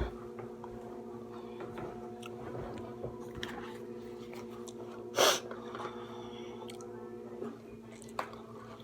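Chewing and small mouth clicks of someone eating at the microphone, over a steady background hum, part of which cuts off about seven and a half seconds in. A short, loud burst of noise about five seconds in.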